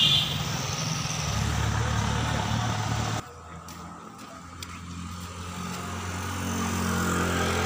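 Road traffic with engines running, then after a sudden cut a quieter street where a motor scooter's engine hum slowly grows louder as it approaches.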